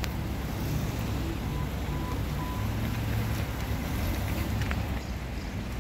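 Steady low rumble of car engine and road noise in street traffic.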